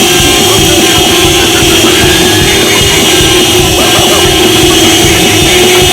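A loud, unbroken din of many car horns sounding together, layered over music.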